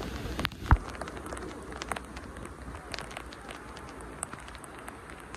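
Rain falling, with scattered sharp ticks of drops and one louder thump under a second in.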